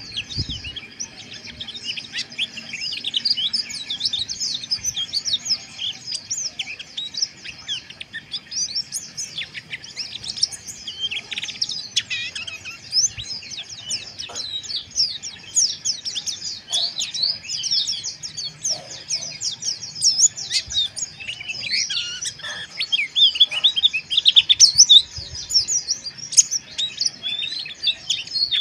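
White-eyes (pleci) twittering in a dense, unbroken stream of quick, high chirps that overlap one another: the rapid, harsh 'ngeriwik' song.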